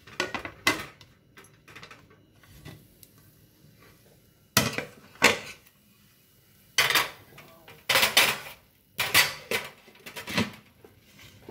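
A plate and a non-stick pan knocking and clattering together as the plate is laid face-down on the pan, the pan is turned over onto it to turn out an omelette, and the pan is lifted off. There are a couple of knocks near the start, then a cluster of louder knocks from about halfway on.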